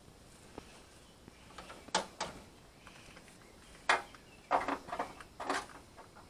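A few short clunks and clatters, about five in all, spaced over several seconds with quiet between: tools and metal parts being picked up and set down while working on a van body.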